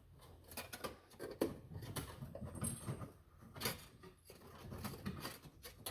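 Metal fish wire being fed through a vehicle's frame rail, scraping and clicking irregularly against the metal.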